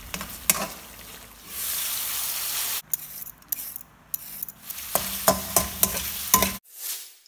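Cooking sounds: a metal spatula clinks and scrapes in a pan as food is stirred, with a stretch of loud frying sizzle. A quieter stretch follows with a peeler scraping a carrot. Then chicken pieces sizzle as they are stirred in an aluminium wok, with sharp spatula clicks against the metal, cutting off suddenly near the end.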